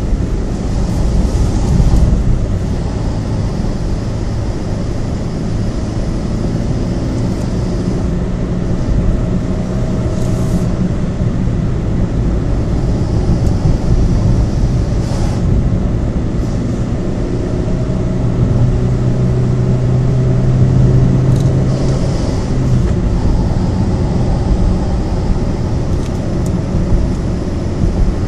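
A vehicle driving along the road, heard from on board: steady engine and road rumble. A steadier engine hum stands out for a few seconds past the middle.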